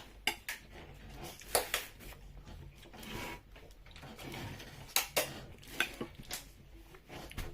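Cutlery clinking and scraping against dishes in a string of sharp clinks, as food is dished onto a plate.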